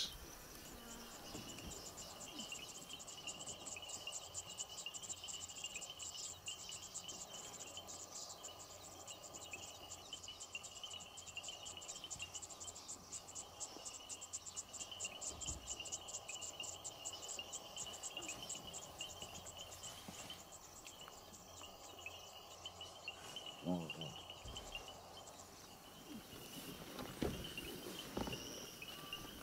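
Faint insect chorus in grassland: a fast, steady pulsing trill high up and a continuous chirring lower down, cricket-like. A brief low call, bending in pitch, stands out about three-quarters of the way through.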